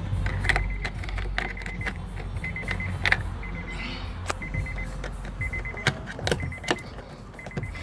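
Irregular plastic clicks and knocks from hand work on a car's door, as a door panel is fitted back in place. Under them is a steady low hum, and a car's warning chime beeps in short evenly pulsed runs.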